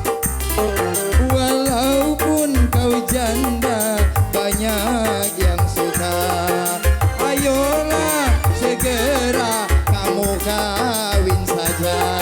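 Dangdut music from an orgen tunggal band: a melody line that bends and wavers in pitch over a steady drum beat with heavy bass.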